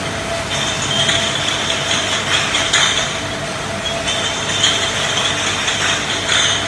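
Beer bottle washing machine running: a steady mechanical hum with a constant tone, and high squealing sounds that come and go every second or two.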